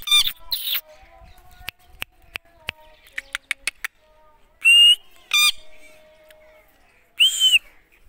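Indian ringneck parakeet calling: short pitched whistles and squawks with sharp clicks between them, and two loud harsh shrieks, one a little past the middle and one near the end.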